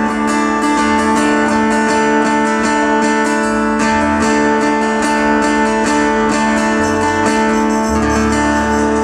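A band playing the instrumental ending of a folk-style song: acoustic guitar strumming over long held notes, with the low notes changing every few seconds.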